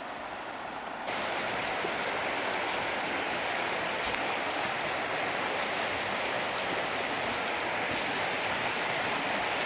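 Water rushing steadily down a stream over small waterfalls. It gets suddenly louder and brighter about a second in, then holds.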